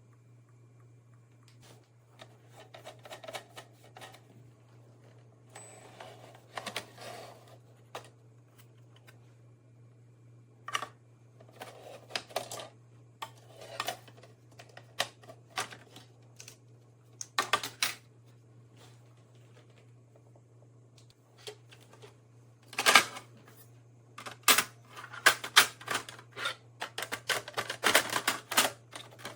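Irregular clicking and clattering of hard objects being handled, in scattered bursts that grow denser and louder in the last few seconds, over a low steady hum.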